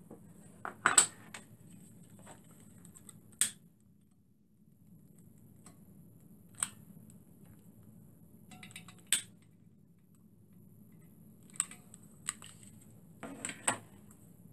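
Sharp clicks every few seconds from a long-nosed butane lighter being triggered to light the fuel pans under a model steam engine's boiler, mixed with small metallic clinks as the metal fuel-pan parts are handled.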